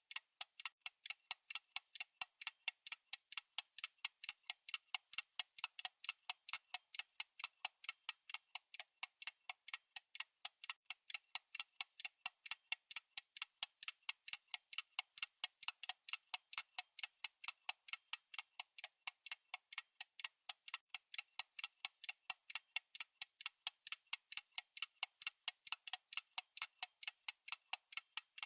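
Clock-style tick sound effect: thin, light ticks repeating evenly, several a second, without pause.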